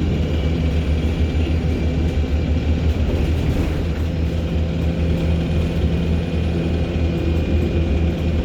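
ADL Enviro200 MMC bus's diesel engine running steadily under way, with a low hum and a steady high-pitched turbocharger whine above it. A fainter, higher whine rises and falls twice.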